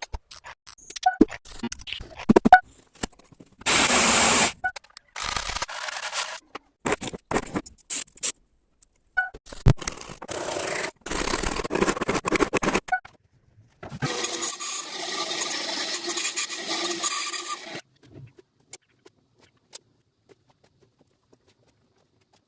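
Workshop hand work on wood: scraping and rubbing in four bursts lasting one to four seconds each, with scattered clicks and taps between them. It goes quiet a few seconds before the end.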